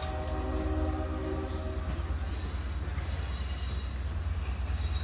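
Train horn sounding a chord for about two seconds, then dying away, over a steady low rumble.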